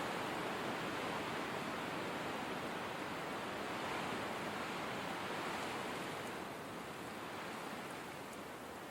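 Steady rushing of snowstorm wind, easing off a little about two-thirds of the way through.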